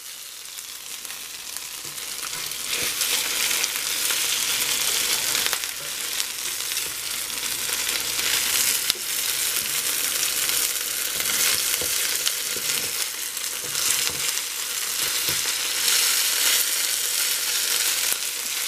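Okra, yellow zucchini and onion in cornmeal sizzling steadily in a cast iron skillet as they pan-fry and brown, the sizzle swelling over the first few seconds. A metal spatula scrapes and knocks against the skillet now and then as the pieces are flipped and pushed from the edges to the middle.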